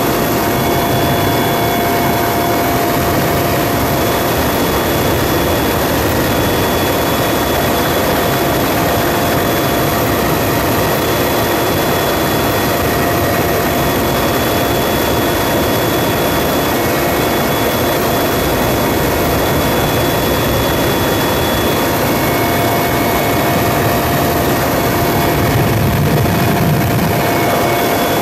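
Helicopter running steadily: a loud, even rush of engine and rotor noise with a constant turbine whine through it, swelling slightly deeper near the end.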